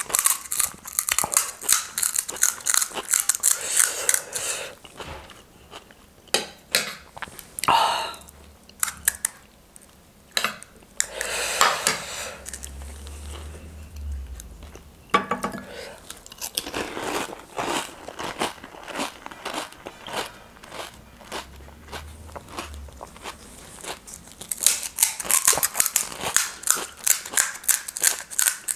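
Crisp panipuri shells cracking as they are broken open by fingers and crunched, with chewing between. A fast run of crackling crunches comes at the start and again near the end.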